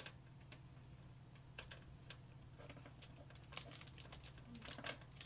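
Faint, scattered light clicks and taps of small metal parts as a motherboard standoff is handled and fitted into the PC case, over a low steady hum.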